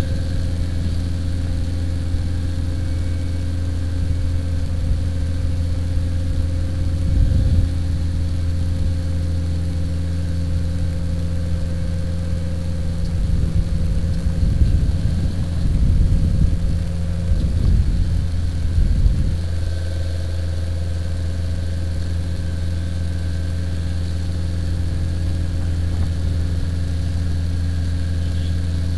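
Fire truck engine running steadily at a constant speed, with a stretch of uneven low rumbling about halfway through.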